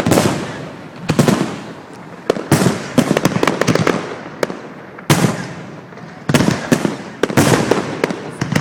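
Fireworks display: aerial shells bursting in quick succession, about one loud bang a second, each followed by a fading rumble, with smaller crackles in between.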